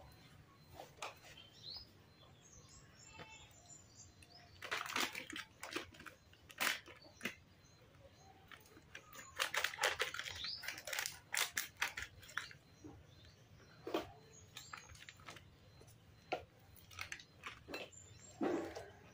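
Foil packet crinkling and rustling as it is handled and cut open with scissors, in irregular bursts of sharp crackles and clicks, thickest about halfway through.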